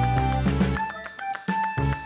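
Background music: an instrumental tune with held melody notes, a bass line and a steady beat; the bass drops out briefly near the end.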